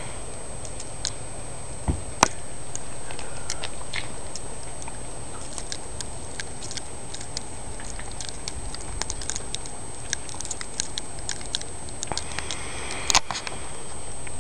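Irregular light ticking and pattering over a steady low rumble of outdoor background noise, with a sharp crack about two seconds in and a short cluster of louder clicks near the end. A faint high steady whine runs underneath.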